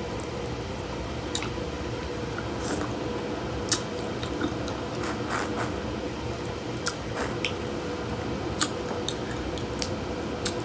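Wet eating sounds from a crawfish boil in butter sauce: soft squishing and chewing, with scattered small sharp clicks.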